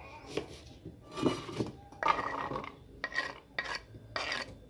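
Knife cutting an onion on a wooden cutting board, then chopped onion going into an aluminium pot: a string of short scrapes and knocks, about half a dozen in all.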